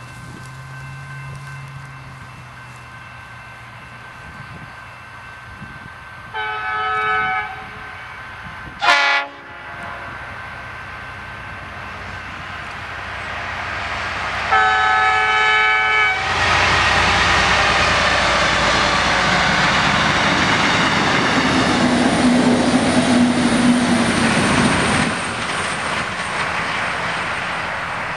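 V/Line N class diesel locomotive sounding its multi-note horn as it approaches: a blast about six seconds in, a short sharp toot, then a longer blast. The locomotive and its train of carriages then pass close by, loud with engine and wheels on rail, and the noise drops away a few seconds before the end.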